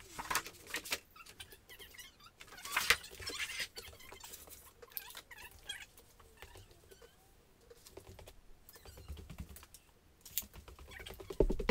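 Scattered light clicks, taps and rustles of work at a countertop, from a sheet of Formica laminate being handled and a tape measure being used on the counter. The loudest tap comes about three seconds in.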